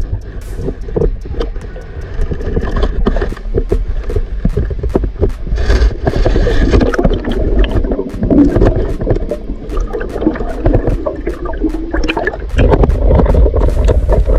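Water movement heard with the microphone underwater: gurgling and bubbling with many small knocks and scrapes, over a steady low rumble, as a spearfisher swims through shallow water.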